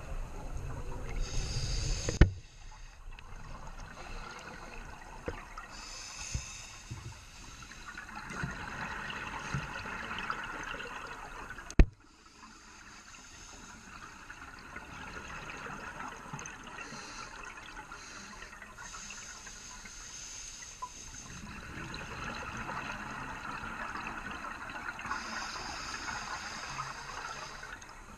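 Scuba diver breathing through a regulator underwater: hissing inhalations and long bubbling exhalations, several seconds apart. Two sharp clicks stand out, one about two seconds in and one near the middle.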